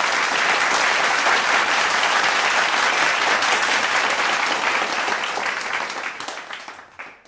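Audience applauding, a dense steady clapping that fades out over the last two seconds or so.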